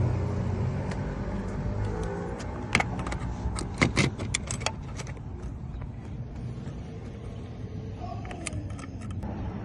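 Sharp metallic clicks and rattles of locksmith lockout tools working at a pickup truck's door, in a cluster about three to five seconds in and a few more near the end, over a steady low hum.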